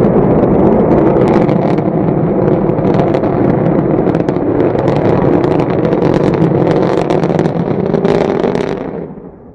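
Rocket roar: a loud, dense rumbling roar shot through with crackles, starting abruptly and fading away near the end.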